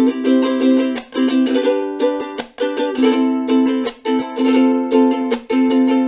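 GS 21 ukulele strummed in a steady rhythm, its chords ringing, with short breaks in the sound roughly once a second.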